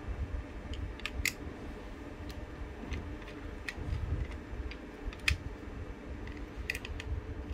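Small screwdriver turning the base screws of a 1:64 diecast model van, giving irregular small sharp clicks and scrapes of metal on metal over soft handling noise.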